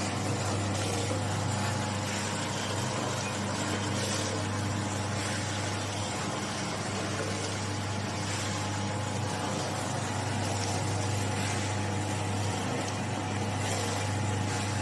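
HTL-400F vertical form-fill-seal pouch packing machine running with a steady hum.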